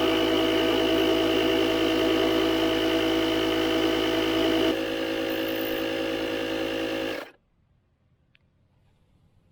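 Riding lawn mower engine, a John Deere 317's, running steadily. It drops a little in level about five seconds in, then cuts off abruptly two seconds later.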